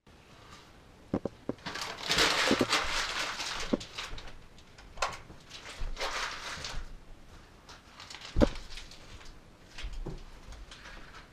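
Newspaper rustling and crinkling in a few bursts as it is handled and walked on, with scattered light knocks and one sharper thump about eight seconds in.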